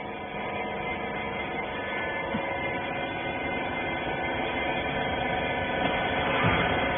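Hydraulic rag baler running: a steady motor-and-pump hum with several fixed tones, growing slightly louder toward the end.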